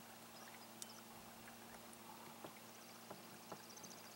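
Near silence: a faint steady low hum with scattered light ticks and knocks. A quick, faint, high-pitched chatter of rapid ticks comes in near the end.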